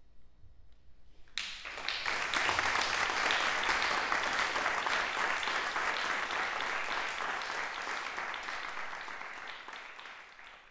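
The final piano sound dies away, then about a second and a half in an audience bursts into applause that stays strong for several seconds and tapers off near the end.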